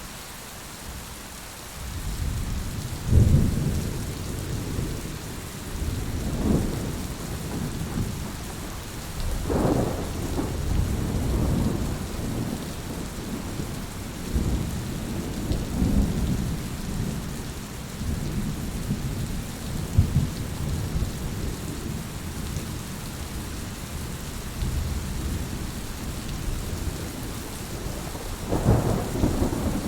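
Steady rain with rolling thunder: a low rumble comes in about two seconds in and swells and fades several times over the rain's hiss.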